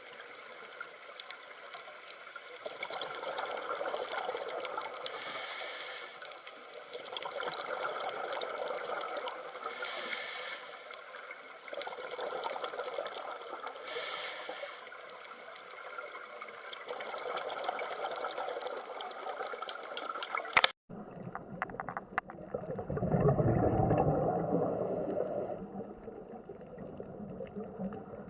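Underwater water noise: bubbling and trickling that swells every four or five seconds. It breaks off with a sharp click about two-thirds of the way through, then a louder, deeper rush of water swells up and fades.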